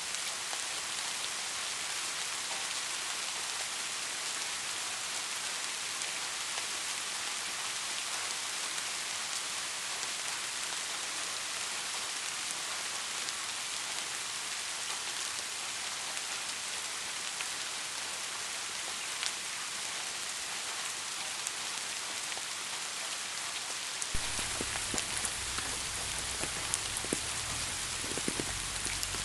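Steady rain, a dense hiss of falling drops. About 24 seconds in it turns fuller, with a low rumble underneath and more distinct single drops.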